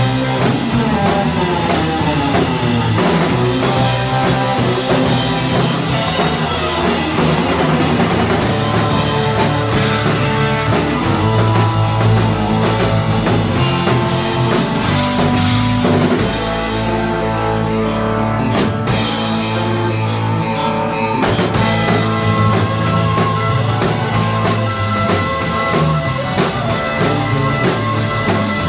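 Live instrumental surf rock band playing, with electric guitar over bass and drum kit. About two-thirds of the way through the cymbals and high percussion drop out for a few seconds, then the full band comes back in.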